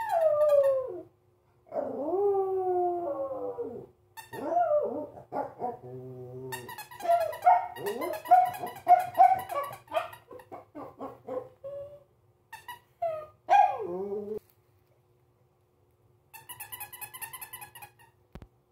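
A Pomeranian howling and whining in a string of sliding, pitched calls, some long and falling, others short and yip-like, with a short rattle near the end.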